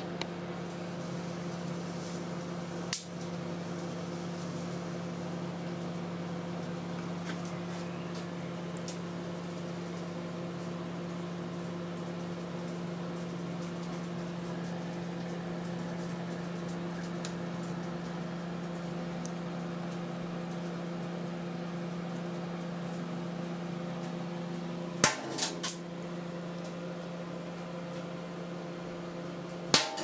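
Inverter microwave oven running with a steady hum, broken by sharp pops: one about three seconds in, three in quick succession near the end, and a last one at the very end. The pops are the unvented electrolytic capacitors on a circuit board inside the oven bursting.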